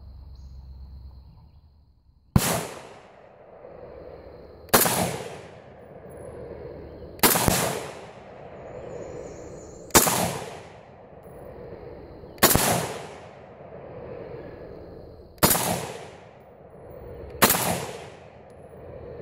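Ruger Mini-14 semi-automatic rifle firing seven single shots of cast-bullet 55-grain handloads, roughly two to three seconds apart, each shot ringing out in a long echo. The rifle cycles every round without a hitch.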